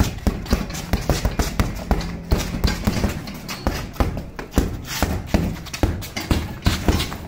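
Boxing gloves punching a hanging heavy bag in quick, irregular combinations: a run of sharp thuds, about two to three a second.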